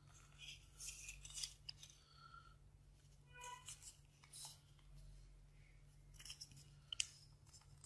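Faint rustling and crinkling of a small square of origami paper being folded and creased by hand, over a low steady hum.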